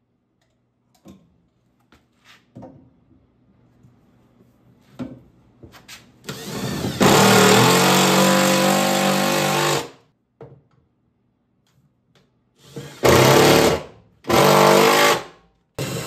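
Cordless power driver driving screws to fix a flat plate heat exchanger to its wall bracket: a few light clicks and handling knocks, then one long run of about three and a half seconds that spins up, followed near the end by two shorter runs.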